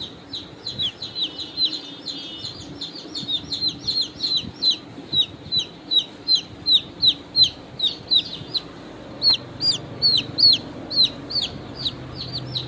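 Chicks peeping: a steady run of short, high, falling peeps, about three or four a second, from several birds at once.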